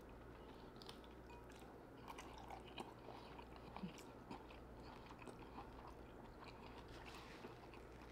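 Quiet chewing of lobster tail meat: soft mouth clicks and smacks scattered throughout, over a faint steady low hum.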